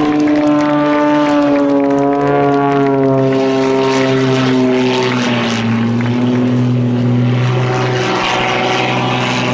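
Extra 330 aerobatic plane's piston engine and propeller running at high power during a display. The drone slowly falls in pitch over the first seven seconds, and a rougher, rasping propeller noise swells in the middle and again near the end.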